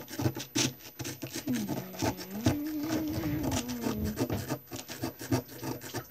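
Small wooden digging sticks scraping and scratching into a packed sand dig brick in quick, irregular strokes. A low, drawn-out tone rises and falls for a couple of seconds in the middle.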